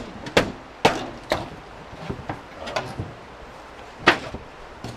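Demolition knocks and bangs as an old camper is torn apart: a run of about six sharp, separate knocks at an uneven pace, the loudest about four seconds in.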